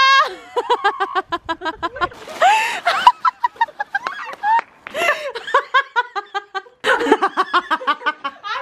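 A woman laughing hard in rapid, high-pitched fits of quick repeated ha-ha pulses, breaking off and starting again several times.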